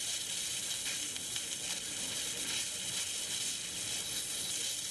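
Liquid CO2 venting from the top valve of a 1-liter stainless sample cylinder: a steady hiss with faint crackles as the overfill blows off as a snow and vapor stream. Venting goes on until the sputtering turns to all vapor, the sign that the liquid level has dropped below the dip tube and the fill is at a safe amount.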